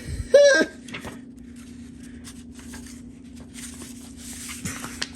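A brief high-pitched vocal sound from a man about half a second in, then soft rustling and small clicks of paper as a booklet is handled, over a steady low hum.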